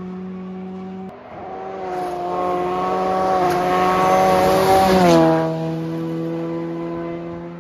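A rally car's engine at high revs, climbing in pitch and loudness as it approaches. It drops sharply in pitch as the car passes close about five seconds in, then fades at a steady lower note. A different steady engine note breaks off abruptly about a second in.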